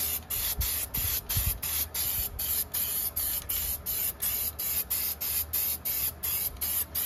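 Aerosol can of clear lacquer spraying, a hiss that breaks up about four times a second.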